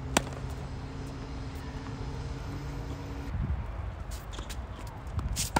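Sharp crack of a tennis racket striking the ball on a slice serve just after the start, over a steady low hum that cuts off abruptly about three seconds in. Scattered ball bounces and a louder cluster of hits come near the end.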